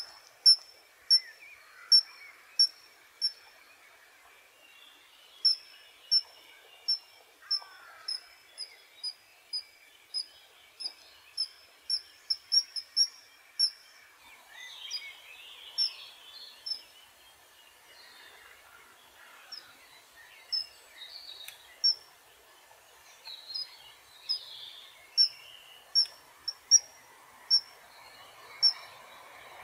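Kingfisher calling: a long series of short, sharp, high-pitched single notes, coming in runs that speed up to about three a second near the middle and then grow sparser and irregular. Faint background noise runs underneath.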